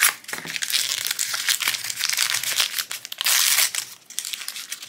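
Thin foil blind-bag wrapper being crinkled and torn open by hand, a dense run of sharp crackles with a louder burst about three seconds in. A sharp click right at the start as the plastic container comes apart.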